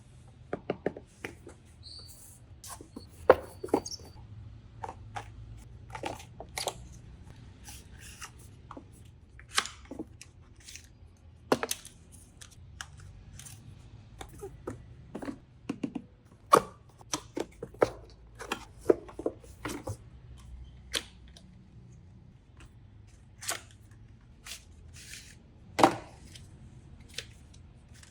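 Irregular clicks, taps and knocks of things being handled by hand, a few every second or two, over a faint low hum.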